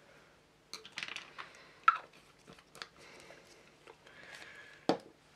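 Hands handling a roll of masking tape on a cutting mat: small clicks and crinkly rustles, with a sharp tap about two seconds in and a duller knock near the end.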